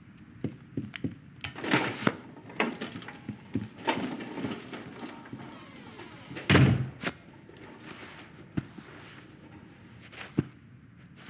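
Animated-film foley of toys moving through a sheet-metal air duct: a run of taps, knocks and clattering, with one loud, heavy thud about six and a half seconds in.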